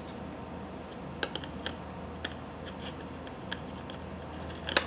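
Plastic clicks and taps from a Ring Spotlight Cam's mounting bracket being handled and worked loose, a few scattered clicks with a sharper one near the end, over a steady low hum.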